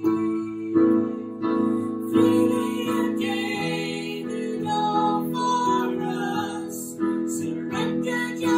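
A woman singing a worship song with a man singing along, to a strummed acoustic guitar; new chords are struck about a second in, after two seconds and near the end.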